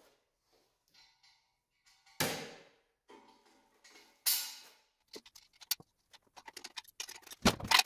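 Two sharp metallic clangs of steel struck and ringing out, about two and four seconds in. Then, from about five seconds in, the irregular crackle of an arc welder tack-welding steel plate, growing denser near the end.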